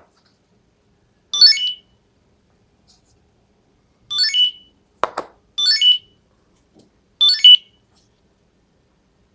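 Chipolo ONE Point Bluetooth tracker chirping: four short, high-pitched electronic jingles a second or more apart, with a sharp click just before the third.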